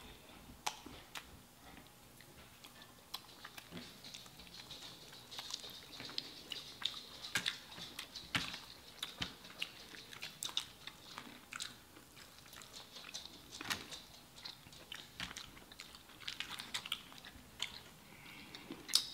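Two people quietly chewing and biting into crispy fried chicken wings, with irregular wet mouth clicks and small crunches.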